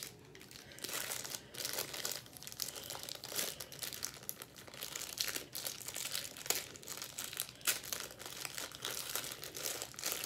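Crinkling of a small clear plastic parts bag being handled in the hands, an irregular run of sharp crackles.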